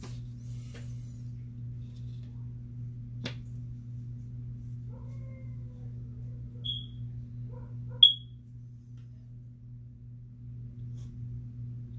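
A steady low hum runs underneath. There is a sharp click about three seconds in, then two short high-pitched metallic pings, the second one, about eight seconds in, much louder, as a metal straightedge and pen are handled on the drawing desk.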